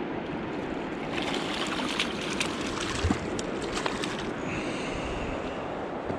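Steady rush of river water flowing out through the dam, with a hooked walleye splashing at the surface beside the boat and a few sharp splashes and clicks as it is swung aboard.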